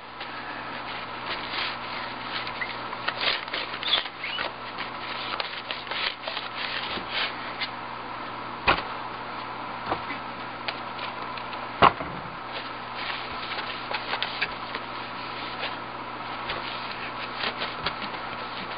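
Paper towel wiping the glass panes of a metal-framed glass display box with glass cleaner, a steady run of short, irregular rubbing strokes. Two sharper knocks come about nine and twelve seconds in, over a faint steady hum.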